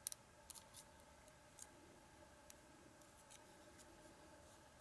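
Faint metallic clicks and ticks of a lock pick working the pin tumblers of an American Lock 1100 padlock under tension, several in quick succession in the first second, then a few scattered ones, over a faint steady hum.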